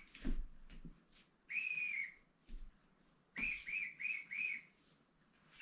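A high-pitched whistle sound: one longer whistle about a second and a half in, then four short whistles in quick succession, each bending slightly up and down in pitch.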